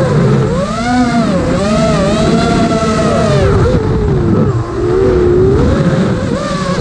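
Eachine Wizard X220 racing quadcopter's brushless motors and Dal Cyclone T5047C propellers whining. The pitch rises and falls continuously as the throttle changes. It is heard close up from the GoPro mounted on the quad.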